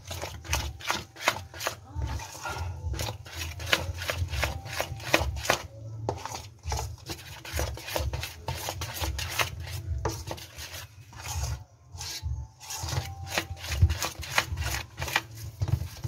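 A hand mixing flour and water into pholourie batter in a stainless steel bowl: rapid, irregular rubbing and scraping strokes, several a second, as the dough is worked against the bowl.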